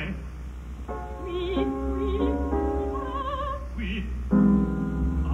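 Operatic singing with wide vibrato over sustained instrumental accompaniment, the chords changing about a second in and again near the end. The old television sound carries a steady low mains hum.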